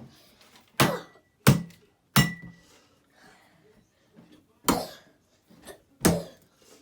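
An old Samsung tablet being struck with a baseball: five sharp, hard knocks on the glass and case. The first three come in quick succession, then after a pause two more follow; a couple of the hits leave a brief high ring.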